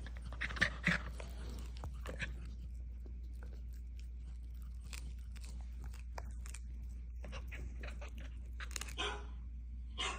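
Dog chewing and crunching, with irregular small clicks and a short breathy burst near the end, over a steady low hum.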